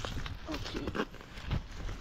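Scattered small scrapes and knocks of a rusty magnet-fishing find being handled and rubbed with a rag on concrete pavement.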